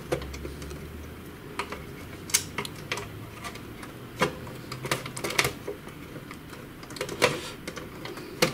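Irregular sharp clicks and taps of plastic and metal parts as a small circuit board is pushed and seated into a Samsung ML-1210 laser printer's frame.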